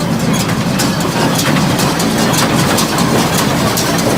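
Tractor engine running steadily and driving an IH 430 square baler on test, with irregular sharp clicks and knocks from the baler's mechanism several times a second.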